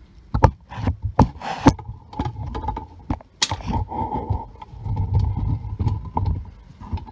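A wrench on the brake caliper's 14 mm brake-hose banjo bolt as it is loosened: irregular metal clicks and knocks, with a couple of short scraping bursts.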